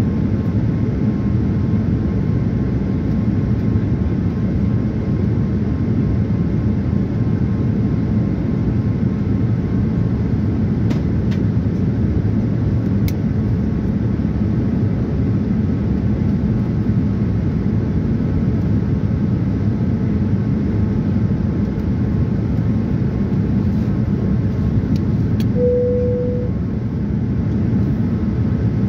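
Steady cabin noise of a Boeing 787-9 in flight: an even, low rush of engine and airflow heard from inside the cabin. A brief single tone sounds about 26 seconds in.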